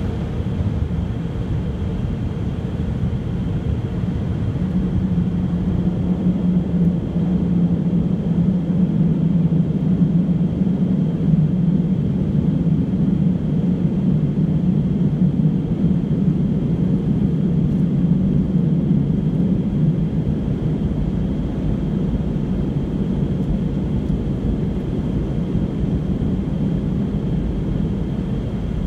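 Steady low rumble heard from inside a car rolling slowly out of an automatic car wash, swelling somewhat in the middle and easing off toward the end.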